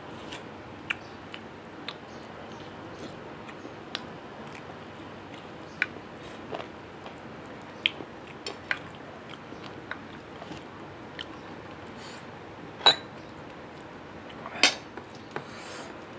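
A person eating rice and chicken by hand close to a clip-on microphone: chewing and mouth clicks, with fingers mixing rice on a plate. Scattered sharp clicks over a steady hiss, two louder ones near the end.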